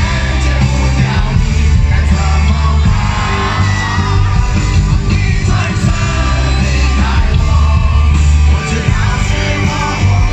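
Live rock band playing loudly, with electric guitars, drums and heavy bass under a sung and partly shouted vocal.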